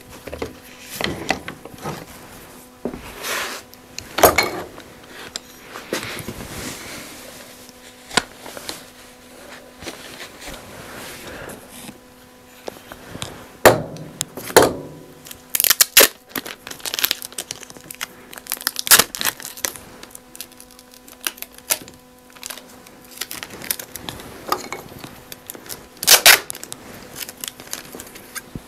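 Scattered clicks, knocks and handling noise as a wooden hand-screw clamp is worked loose and handled. Near the end comes a longer rasp of packing tape being pulled off its roll.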